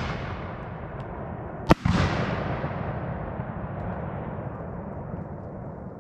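Aerial firework shell bursting with a sharp bang a little under two seconds in, its boom rolling on and slowly fading.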